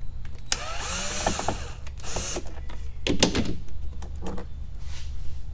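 Power drill-driver whirring in two short runs as it backs out a Phillips screw holding the hybrid battery's cooling fan, followed by a few sharp clicks and knocks of the screw and tool being handled.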